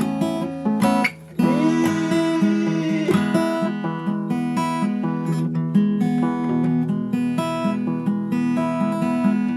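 Acoustic guitar strummed in an instrumental passage of a song, with a brief break about a second in.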